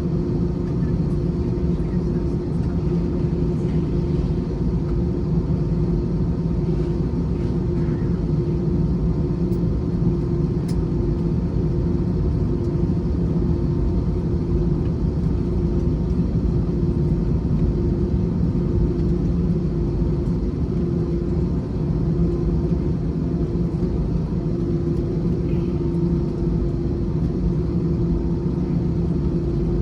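Steady low rumble and drone inside the cabin of an Airbus A321 on the ground, its jet engines running at low power for taxi, with a constant two-note hum throughout.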